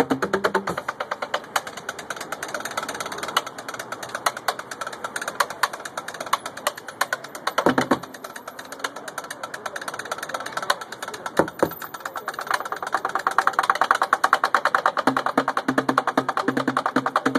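Street drummers beat fast stick rhythms on junk percussion: upturned plastic buckets, a large metal trash can and other scrap items. The playing is softer through the middle, with a couple of heavy single hits. About twelve seconds in it grows louder, and a deeper pulse joins near the end.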